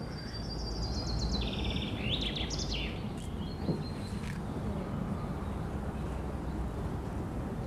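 Outdoor background ambience: a steady low rumble, with small birds chirping and trilling during the first three seconds or so.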